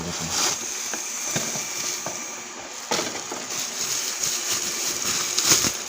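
Rustling, scraping and light knocks of a replacement TV flyback transformer being handled on a workbench, with a sharper knock about 3 seconds in and another near the end.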